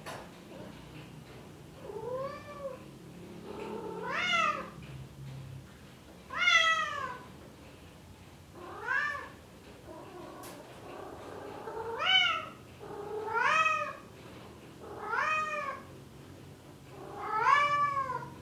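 Male Bengal cat in heat calling for a female: about eight drawn-out meows, each rising and then falling in pitch, repeated roughly every two seconds.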